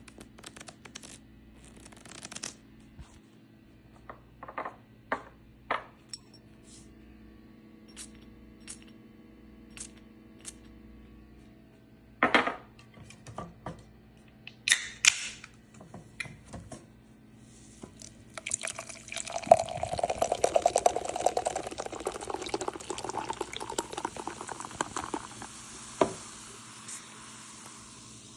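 Foley clicks and clacks of small hard objects being handled, scattered and irregular, then about two-thirds in a long, dense clattering cascade lasting several seconds, with one last sharp click near the end.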